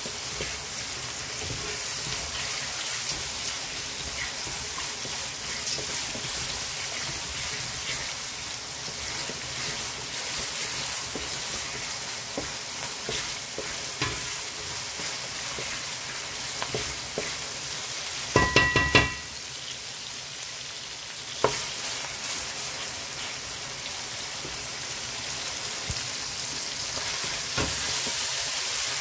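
Chicken breast, onions and peppers sizzling in hot oil in a metal pot, with a wooden spoon stirring and knocking against the pot. About two-thirds of the way in comes a brief loud clatter with a ringing tone.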